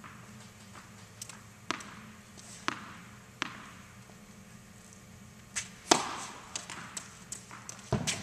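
A tennis ball bounced on an indoor hard court a few times, then the sharp crack of a racket striking a serve about six seconds in, the loudest sound, followed by lighter knocks of balls landing and rebounding. Each hit echoes around the hall.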